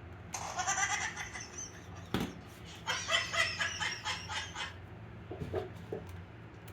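Chicken clucking in two quick runs of rapid, repeated clucks, with a single sharp click between them.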